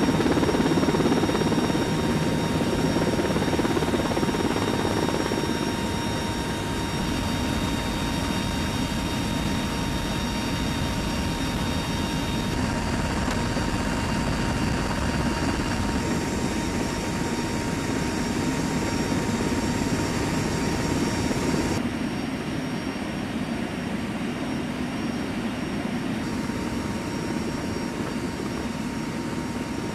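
Steady aircraft noise in flight from the open rear ramp of an HC-130J tanker, with HH-60 Pave Hawk helicopters flying close behind during helicopter air-to-air refuelling: a dense rush of engine, propeller and wind noise with helicopter rotor noise and a faint steady whine. The level shifts at a few cuts and drops somewhat about two-thirds of the way through.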